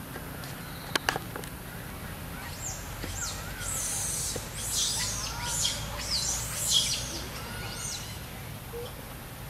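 Birds chirping: a quick run of short, high, falling and arching calls from about two and a half seconds in until near the end. Before it, about a second in, come two sharp clicks.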